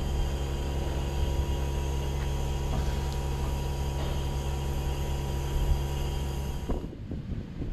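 Steady mechanical hum of a running machine with several held tones, unchanging in pitch, cut off abruptly near the end and replaced by a rougher, noisier rumble.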